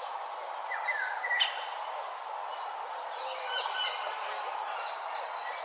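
Morning birdsong: several birds chirping and calling over a steady hiss, with brighter calls about a second in and again around three to four seconds.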